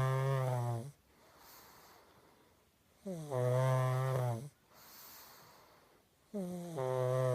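Pug snoring loudly in its sleep: long buzzing snores about every three seconds, one near the start, one in the middle and one near the end, with softer breathing between them.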